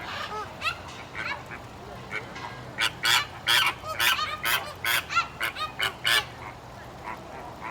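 A flock of flamingos honking, many short calls overlapping. The calls grow louder and come thick and fast about three seconds in, then thin out near the end.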